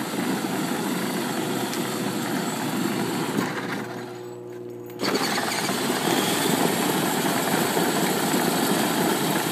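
Battery-powered Ford ride-on toy pickup truck running: its electric drive motors and gearboxes whir and its hard plastic wheels rumble on the asphalt. The noise drops off about four seconds in and picks up again sharply about a second later.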